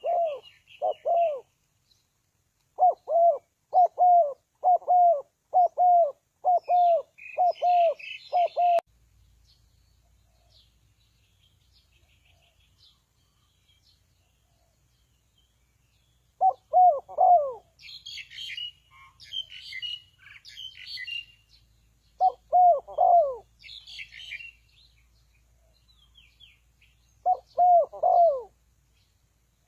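Spotted dove cooing. First comes a quick run of low, hooked coo notes over the first nine seconds, then short groups of two or three coos about every five seconds. Small birds chirp higher-pitched in between.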